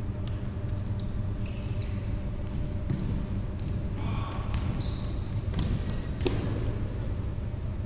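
A futsal game on a wooden sports-hall floor: scattered sharp kicks of the ball and short squeaks of sneakers over a steady low hum. The loudest kick comes a little after six seconds in.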